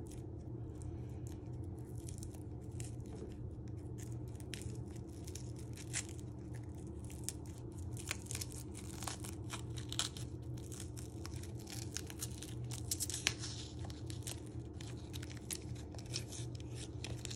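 Fingers peeling the dry, papery outer skin off a shallot: faint crackling and tearing with many small clicks scattered throughout.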